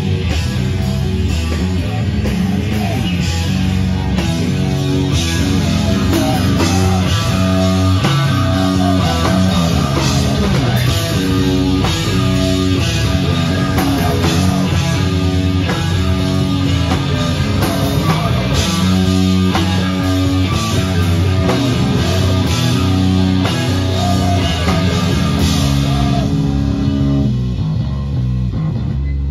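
A live metal band plays loud, heavy music on distorted electric guitars and a drum kit. Near the end the drum hits stop and the guitars ring on.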